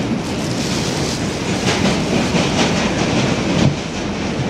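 Heard from inside an R142 subway car running on the rails: a steady noise of wheels and car, with a run of clicks from the wheels passing over rail joints in the middle.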